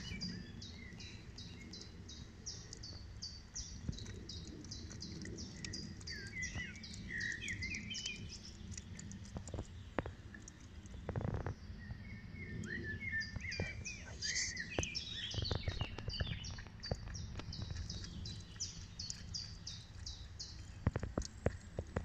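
Wild songbirds singing: runs of short high notes repeated about three or four times a second, broken by brief warbling phrases. A few soft knocks come about ten seconds in.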